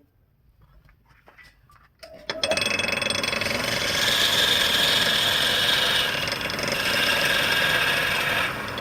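A woodturning lathe starting up about two seconds in and then running steadily, a dense mechanical noise with a few steady tones.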